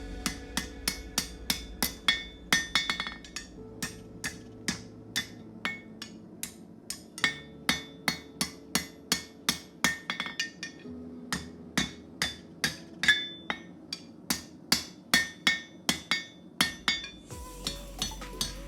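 Blacksmith's hammer striking hot 1/4-inch square steel bar, about two or three ringing blows a second in runs with short pauses, bending the stock into shape for the buckle.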